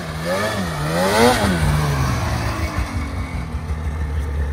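Ski-Doo snowmobile engine with its revs rising and falling in quick, even waves, then falling away to a low idle about a second and a half in.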